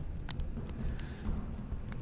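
Room tone: a low steady rumble with a few faint clicks.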